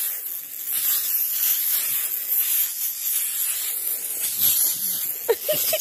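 Aerosol party snow spray cans hissing in a steady, continuous spray.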